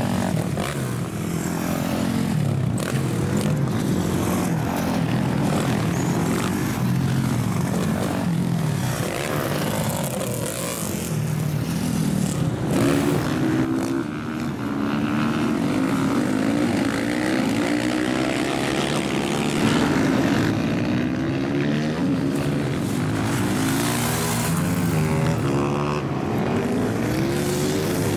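Several racing supermoto motorcycle engines, overlapping as the bikes pass, their pitch rising and falling over and over as the riders rev hard and shift through the gears.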